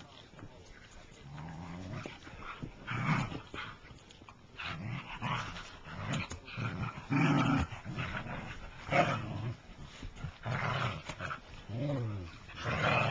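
Whippets growling and vocalizing while they play: a string of separate growls and whines that slide up and down in pitch, coming every second or two.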